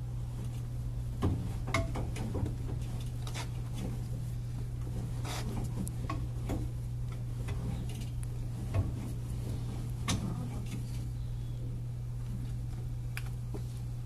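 Chevrolet S10 spare-tire winch being cranked with its rod to hoist the spare up under the bed: scattered metallic clicks and clinks at irregular intervals, over a steady low hum.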